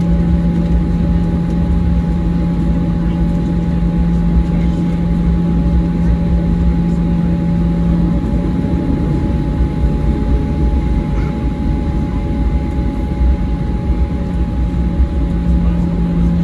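Cabin noise of a Boeing 737-800 taxiing with its CFM56-7B engines at idle: a steady low rumble with a constant hum and a fainter high whine. The low hum drops back about halfway through and comes back near the end.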